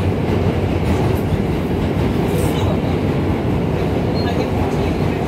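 R160 subway car running on the rails, heard from inside the car: a steady low rumble of wheels and traction motors.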